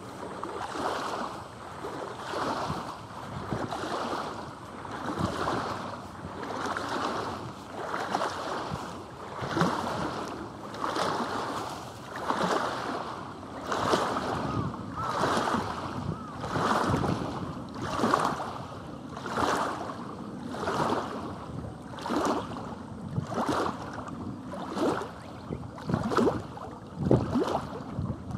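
Small river waves lapping and sloshing against a stony bank, in a rhythmic wash that comes about once a second or so.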